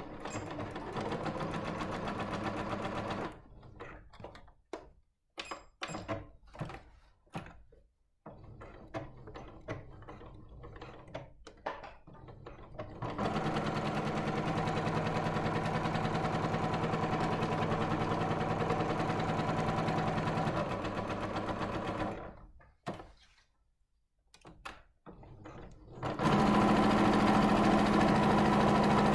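Electric domestic sewing machine stitching a seam in stop-start runs: a short run near the start, a long steady run in the middle and a louder run near the end. Between runs come pauses with small clicks and knocks as the fabric is handled.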